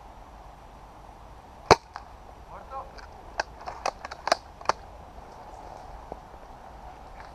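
Airsoft gun shots: one loud sharp pop a little under two seconds in, then a quick irregular string of about six more pops about a second later.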